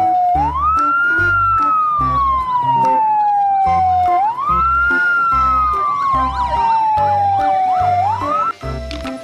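Fire engine siren wailing: a quick rise then a long slow fall, repeating about every four seconds, with a faster warbling siren behind it. It cuts off partway through a rise near the end.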